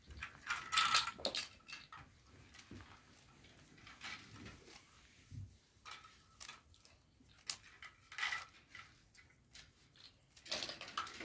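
Rubik's cube being turned rapidly by hand: irregular plastic clicks and rattles as the layers are twisted, the loudest flurry about a second in.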